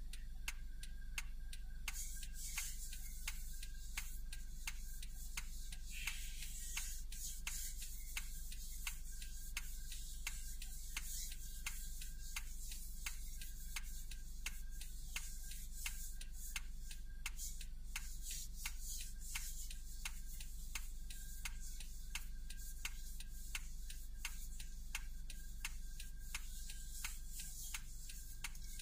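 A car's indicator clicking at an even rhythm, roughly two to three ticks a second, over a low steady hum in the cabin.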